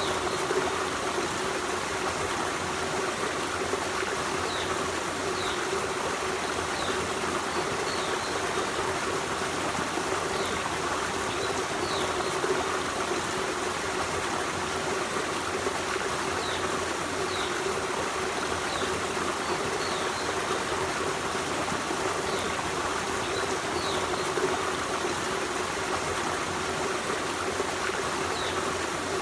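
Forest stream running: a steady rush of flowing water with a trickling texture, and faint short high notes now and then.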